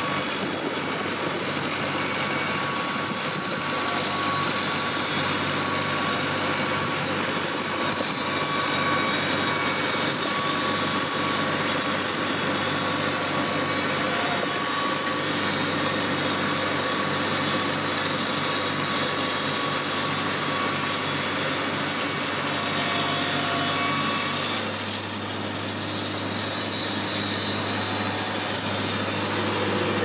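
Wood-Mizer LT70 electric band sawmill cutting a board from a log, the band blade running steadily through the wood. Underneath is the steady hum of the diesel generator that powers the mill.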